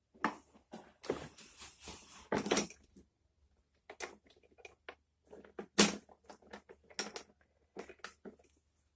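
Scattered light clicks, knocks and rustles of hands handling a folded lawn mower handle, with one sharper knock about six seconds in.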